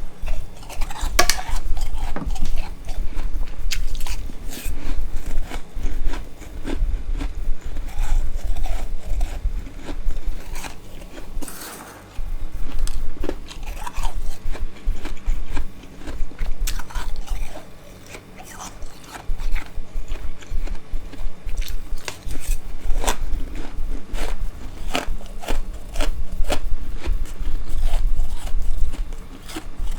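Close-up crunching and chewing of scraped freezer frost, packed powdery ice bitten and ground between the teeth in quick crackly runs, with a couple of short pauses.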